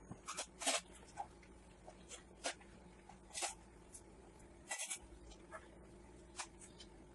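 Faber-Castell Matt-Grip graphite pencil scratching across drawing paper in short, irregular strokes, with a cluster of quick strokes near the start and single strokes every second or so after.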